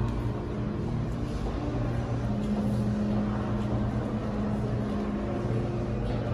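Subway station ambience: a steady low mechanical hum with a few held low tones, one of which grows stronger about two seconds in.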